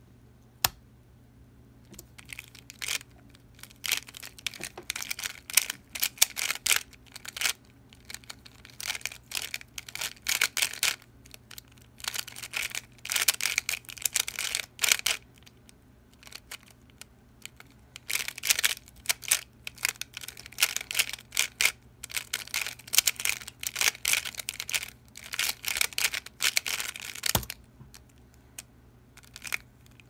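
Square-1 puzzle being turned fast through a speedsolve: uneven bursts of plastic clicking and clacking from the layer turns and slices, with short pauses between bursts. A single sharp click comes near the end.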